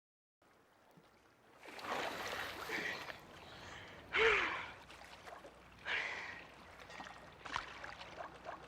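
A person gasping for breath: four or five heavy, rasping breaths about every second and a half to two seconds, one a little after four seconds in the loudest, with a brief catch of voice.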